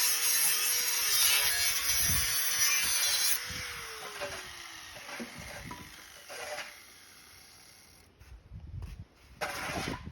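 Motor-driven grinder sharpening a metal farm-tool blade with a harsh, hissing grind. About three and a half seconds in the grinding stops and the motor's whine falls in pitch as it spins down, followed by a few faint knocks and a short burst of grinding noise near the end.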